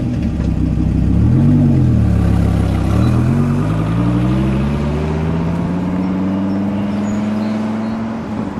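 Dodge Viper's V10 engine, just started, revved briefly about a second and a half in, then pulling away with its pitch climbing steadily for several seconds before easing off near the end.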